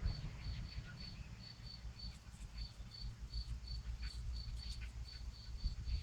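An insect chirping steadily, a high, even chirp repeated about four times a second, over a low rumble.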